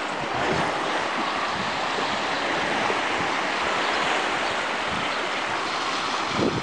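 Steady wash of sea water with wind rushing over the microphone, an even, unbroken noise.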